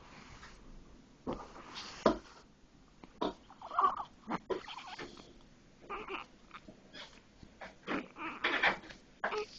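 Newborn baby's short, irregular whimpers, squeaks and grunts as it fusses, unable to settle.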